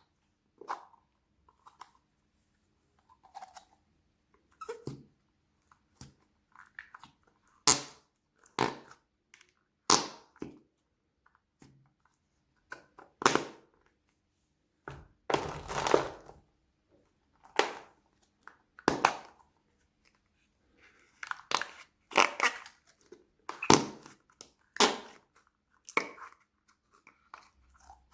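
Hands unboxing and playing with toy slime toilets: a string of short, irregular crinkling, crunching and squishing sounds with pauses between, a few of them longer.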